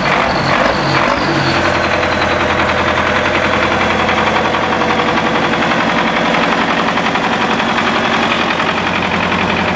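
Belarus 925 loader tractor's diesel engine running, settling from a higher speed down to a steady idle in the first couple of seconds, then idling evenly.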